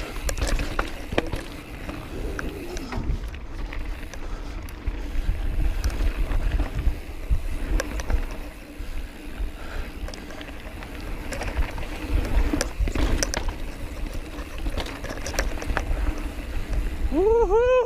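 Mountain bike rolling fast down a rough dirt trail: a steady rumble of tyres and wind on the handlebar-mounted camera, with frequent sharp clicks and rattles as the bike jolts over stones. Near the end a short wavering high-pitched sound comes in.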